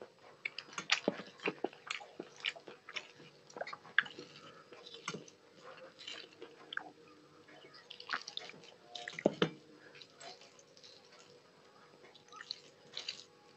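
Close-miked eating with the hands: fingers squishing and mixing rice on a steel plate, with wet chewing and lip smacks, an irregular run of small clicks. One louder knock about nine seconds in.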